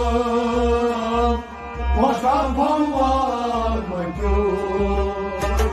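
A man singing a Kashmiri Sufi kalam in long, held, ornamented phrases, accompanied by a harmonium over a steady low drum beat. Sharp percussion strikes come in near the end.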